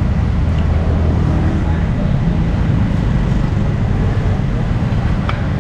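Low, steady rumble of a motor vehicle's engine running close by, over general street traffic noise.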